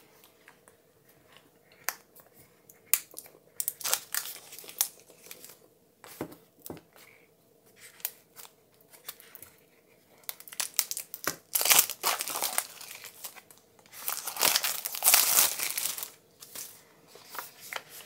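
A pen package being unwrapped by hand: wrapping crinkling and tearing, with small knocks and clicks from handling. The loudest crinkling comes in two spells in the second half.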